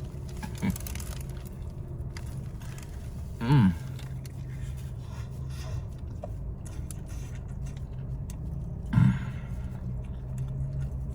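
A man eating a meatball sub over a steady low hum, with short voiced murmurs through a full mouth about three and a half and nine seconds in.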